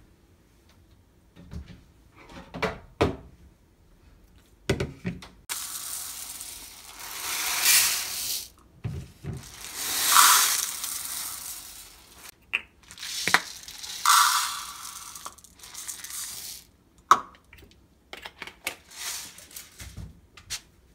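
Dry rice grains poured from a plastic measuring cup into a plastic rice-washing bowl: a rushing, pattering hiss over several pours, loudest about ten seconds in, with light clicks and knocks of the cup and bowl being handled before and after.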